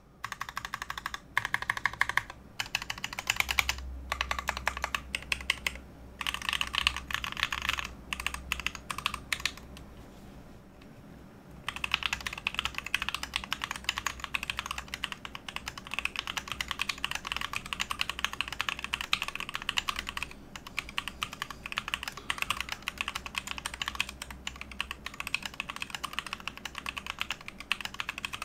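Typing on an Ultimate Hacking Keyboard, a split mechanical keyboard fitted with lubed Tangerine linear switches over case and plate foam: a fast, even run of keystrokes. There are brief breaks, and a pause of about two seconds about a third of the way in before steady typing resumes.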